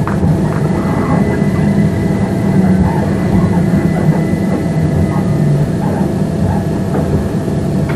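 Cabin noise inside a c2c Class 357 electric multiple unit running into a station platform: a steady low rumble from the running gear with a faint, even electric whine above it.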